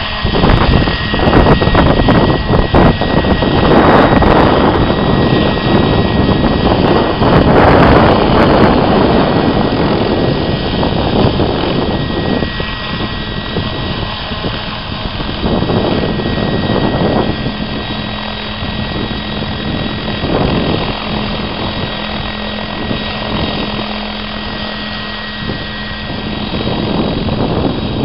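Radio-controlled model helicopter hovering low, its main rotor and motor running steadily with heavy buffeting on the microphone for the first half; after about 12 seconds it turns quieter and smoother, with a steady whine, as it settles onto its landing board.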